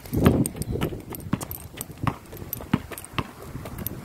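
Basketball being dribbled on an asphalt street: a steady run of bounces, roughly one every two-thirds of a second. A louder, muffled burst comes at the very start.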